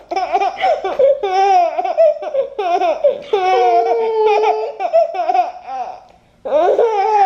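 A baby laughing in a run of high, wavering bursts, with a short break about six seconds in.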